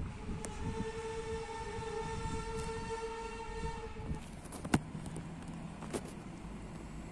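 Diesel railcar's horn sounding one long steady note for about three and a half seconds. Shortly after it stops comes a sharp knock, the loudest moment, and a fainter knock about a second later.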